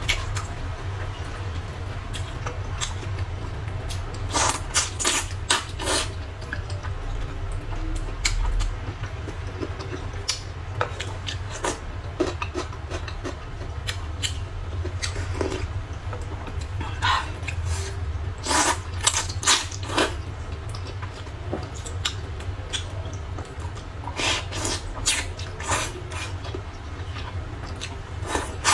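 A person eating rice noodles in broth from a bowl: groups of slurps and mouth sounds with utensils clicking against the bowl, over a steady low hum.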